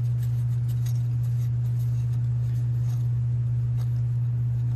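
A steady low hum that does not change, with a few faint light clicks over it.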